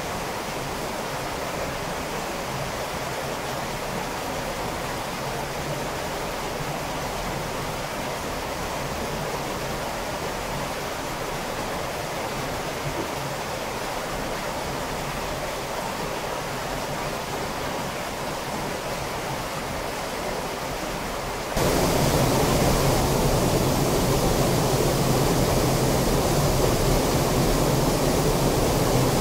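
Rushing stream in a narrow limestone cave passage, running high after heavy rain, a steady rush of water. About three quarters of the way through it gives way abruptly to a louder cave waterfall pouring into a pool.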